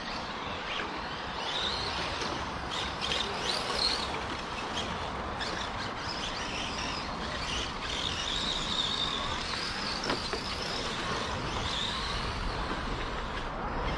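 Steady outdoor background noise with birds chirping now and then.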